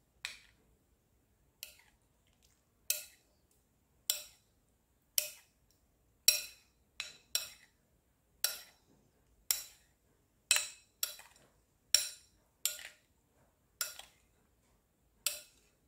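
Metal spoon clinking against a bowl of yogurt and mango: about sixteen separate clinks at uneven intervals of around a second.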